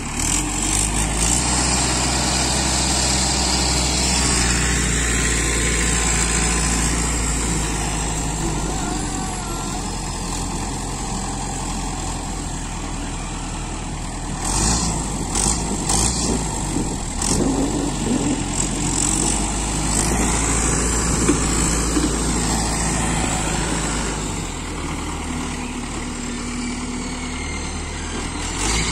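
Mahindra Arjun 605 DI tractor's diesel engine running steadily as it works the front loader, its note shifting a couple of times. About halfway through comes a short spell of rattling as a bucket of soil is tipped into the trolley.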